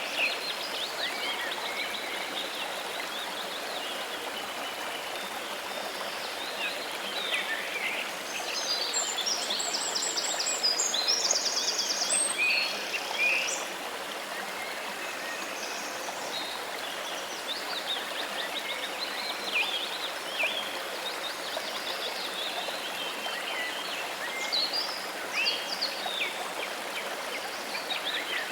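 Steady rush of running water with small birds chirping and trilling over it; the birds are busiest about a third of the way in, with a quick run of rapid repeated notes.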